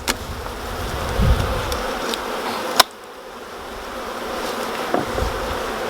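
Honeybee colony buzzing, a steady hum of many bees, with one sharp click about halfway through.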